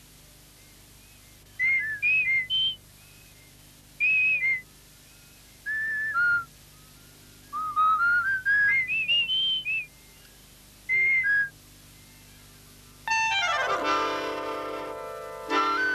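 A high whistle plays short phrases of bending, gliding notes, separated by pauses. About 13 seconds in, woodwind music with a falling line takes over.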